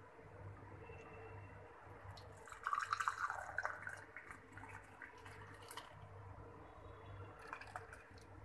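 Milk being poured into a glass tumbler, splashing and gurgling as it fills, loudest about three seconds in. A faint low hum runs underneath.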